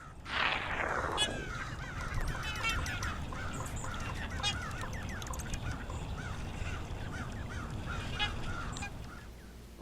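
A flock of waterfowl honking, many short calls overlapping and repeating over a steady low rumble, after a swoosh at the start.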